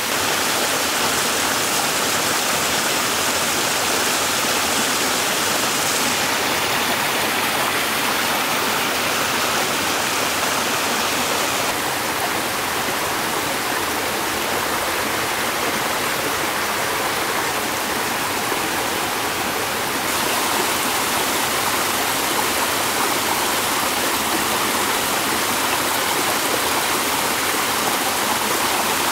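Flowing water rushing steadily, its tone shifting slightly a few times.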